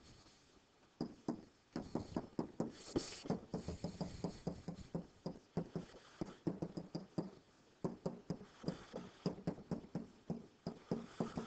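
A pen stylus tapping and scratching on a digital writing surface while handwriting: an irregular run of light clicks and short scrapes, starting about a second in.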